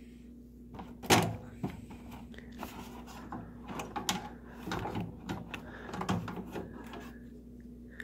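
Microwave door latch assembly being refitted by hand: a sharp metal knock about a second in, then a run of small clicks and knocks as the latch bracket is worked back into place.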